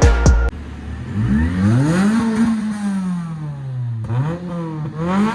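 A vehicle engine revving, its pitch climbing and then sinking slowly, then rising again twice in quick pulls. Background music cuts off just before it.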